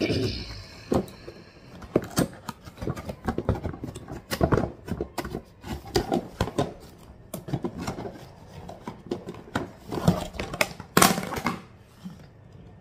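Steel tiffin box being handled: irregular clicks, knocks and clatter of metal parts, the loudest about eleven seconds in.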